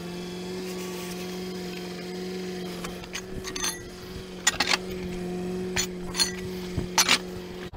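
Sharp metal clanks and clinks of tow-truck wheel dollies being worked off a car's wheels, scattered through the second half, over a steady low hum.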